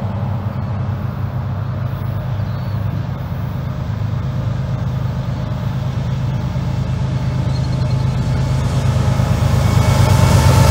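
Norfolk Southern freight train's lead diesel locomotives running as they approach, a steady low engine drone that grows louder near the end as they draw alongside.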